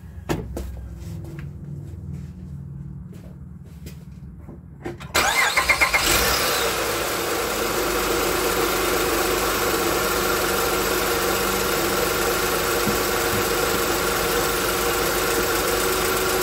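Honda Odyssey V6 engine being started with a dry, unfilled oil filter. About five seconds in the starter cranks briefly and the engine catches, then settles into a steady idle.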